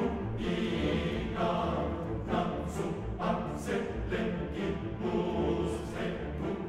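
Dramatic soundtrack music: a choir singing over an orchestra, pulsing steadily.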